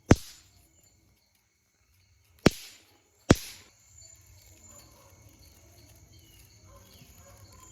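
Three sharp knocks, the last two less than a second apart, over a steady chirring of crickets; after the third a faint low noise sets in and slowly grows.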